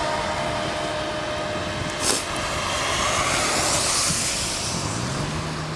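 Steady rush of wind and tyre noise from riding a bicycle along a wet paved bike path, with a sharp knock about two seconds in. From about three to five seconds in, a car's tyres hiss past on the wet road alongside.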